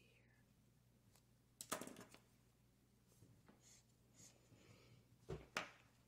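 Quiet handling and marking sounds: a highlighter marker drawn across a word on notebook paper, with two short, louder rustles or knocks, about two seconds in and near the end.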